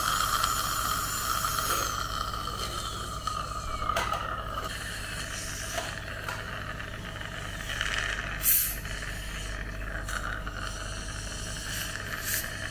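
High-speed dental drill whining during a cavity filling, then winding down with a falling pitch between about two and five seconds in. Afterwards there are short hissing bursts, the loudest about eight and a half seconds in, over a steady low hum.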